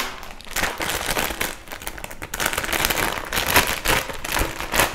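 Plastic snack bag of batata palha (potato sticks) crinkling as it is picked up and handled close to the microphone: a dense, steady crackle of many small crinkles.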